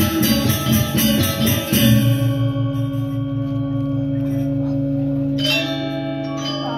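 Balinese gamelan gong kebyar playing: fast, dense metallophone figuration for about two seconds, then the ensemble stops on a struck chord and lets it ring, a low wavering sustain of gong and metallophone tones. Near the end, soft high metallophone notes come in over the ringing.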